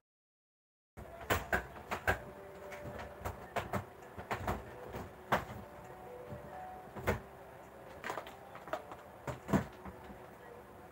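Irregular sharp clicks and knocks, some louder than others, over a faint steady background. The sound drops out completely for about the first second.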